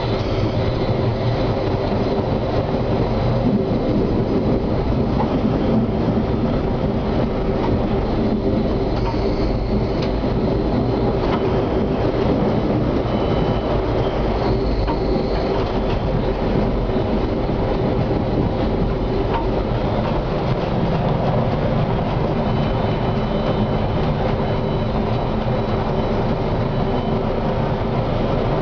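Konstal 105Na tram running along the line, heard from inside the driver's cab: a steady rumble of wheels on rails with the tram's running gear.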